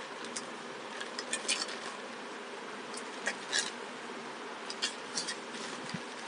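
Plastic courier mailer bag crinkling as it is handled, in several short crackly bursts, over a steady background hiss.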